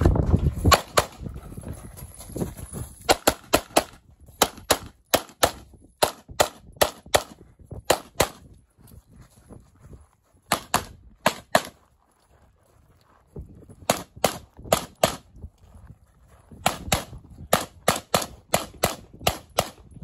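Competition handgun fire through a stage run: shots mostly in quick pairs and short strings, broken by pauses between positions, with a gap of about two seconds around the middle.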